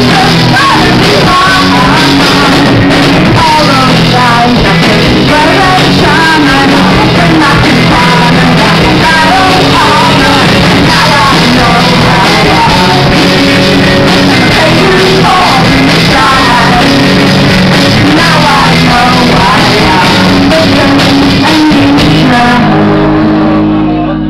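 Live rock band playing loud: electric guitar, bass guitar and drum kit together.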